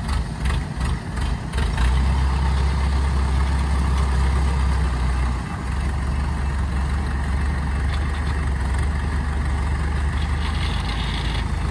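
Kubota combine harvester's diesel engine running close up, a deep steady rumble; it pulses unevenly for about the first two seconds, then settles into an even drone.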